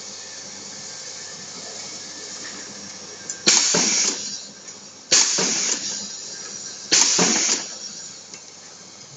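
Pneumatic eyelet press setting eyelets in cloth: three strokes about a second and a half apart, each a sharp clack followed by a hiss of exhausting air that dies away within about a second.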